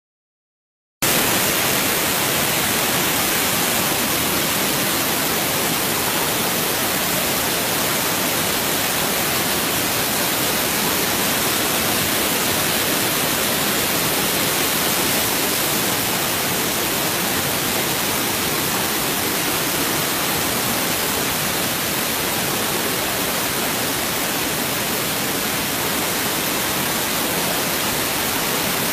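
Waterfall: many streams of water pouring down a rock face into churning white water, a steady, loud rush of water that comes in about a second in after a brief silence.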